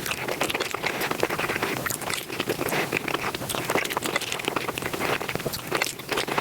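Close-up eating sounds played back fast: a dense, unbroken run of chewing, crunching and mouth smacks.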